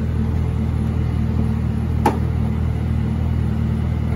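Supercharged 6.2 L LT4 V8 of a 2019 Chevrolet Camaro ZL1 idling steadily with a deep, even rumble. A single sharp click sounds about two seconds in.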